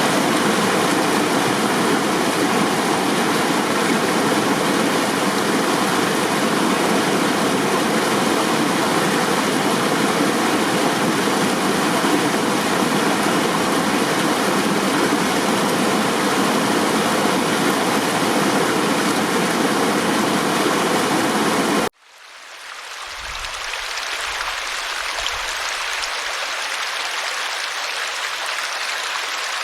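Running water rushing steadily, like a stream. About three-quarters of the way through it cuts off suddenly, then fades back in as a thinner, hissier flow with a faint low rumble underneath.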